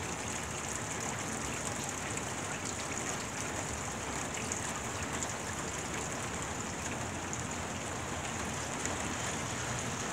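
Steady rain falling on wet pavement and grass, an even hiss with no change.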